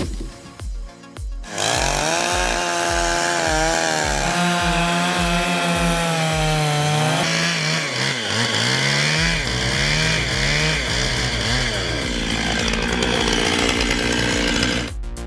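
A loud engine-driven machine cutting wood, its engine pitch rising and falling as it loads and frees up, over background music with a steady drum beat. The machine sound comes in about a second and a half in and gives way to the music alone near the end.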